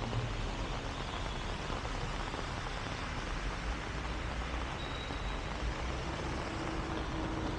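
Heavy rain falling in a steady, even hiss, with a constant low rumble underneath.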